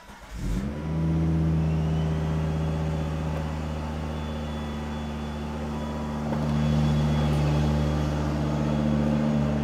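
Volvo V70R's turbocharged five-cylinder engine starting for the first time through a newly fitted IPD cat-back exhaust. The starter cranks briefly and the engine catches within the first second, then idles steadily.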